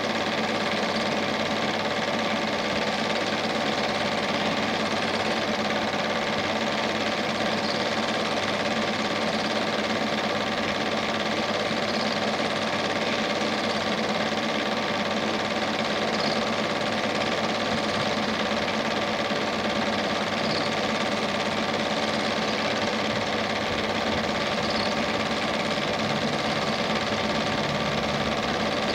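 A cine film projector running steadily: an even mechanical whirr with a faint tick about every four seconds.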